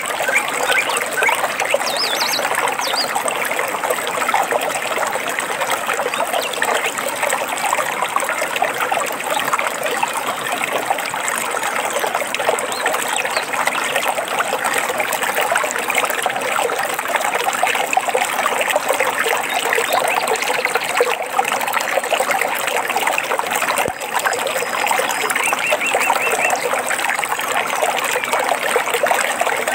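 Water trickling and babbling in a stream, a steady splashing rush, with a few bird chirps rising above it now and then.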